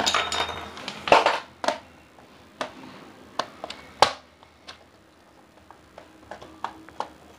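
A screwdriver working the screws on the plastic underside of a Lenovo keyboard: a couple of louder handling knocks in the first second and a half, then scattered sharp clicks of the metal tip on screw and plastic, one louder about four seconds in.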